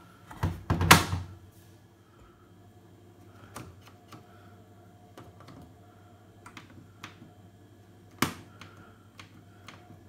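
Beko WM5122S washing machine door being pushed shut, latching with a loud double thud about half a second in. Then a string of sharp clicks, the loudest a little after eight seconds in, as the programme selector dial is turned and the panel buttons are pressed.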